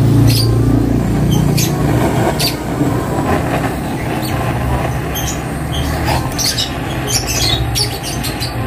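Handheld butane canister torch burning steadily with a low rumble, loudest in the first second or so, its flame played on the aluminium crankcase's bearing bore to heat and expand it before a new crankshaft bearing is fitted.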